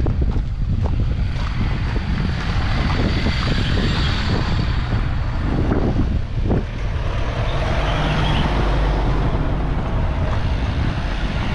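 City street ambience: a steady low rumble of wind on the microphone mixed with traffic noise, with a few short knocks.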